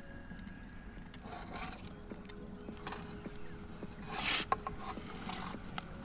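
Perforated metal pizza peel scraping across the stone floor of a Gozney Roccbox gas pizza oven as it slides under the pizza to lift it out. One short, louder scrape comes about four seconds in, with lighter scrapes and taps around it, over the steady low rush of the gas burner.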